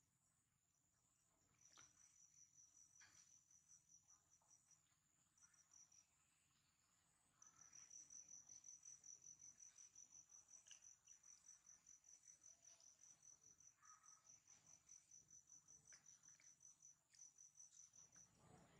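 Faint, high-pitched insect chirping in rapid even pulses. It starts about two seconds in, breaks off briefly, and comes back louder from about seven seconds in.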